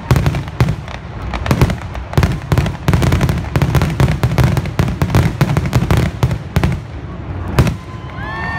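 Fireworks grand finale: a rapid barrage of aerial shell bursts, several bangs a second over a continuous low rumble, stopping with a last loud bang about a second before the end.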